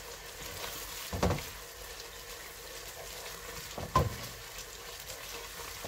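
Onions and ginger-garlic paste sizzling steadily in butter while being sautéed, stirred with a wooden spoon that knocks against the pot twice, about a second in and about four seconds in.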